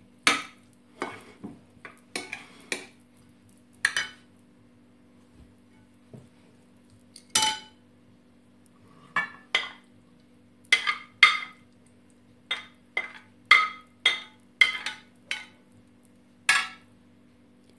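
A serving spoon clinking and knocking against a glazed ceramic bowl and platter as diced beetroot is stirred and spooned out: a string of sharp separate clinks, with a quiet pause of a few seconds about a third of the way in.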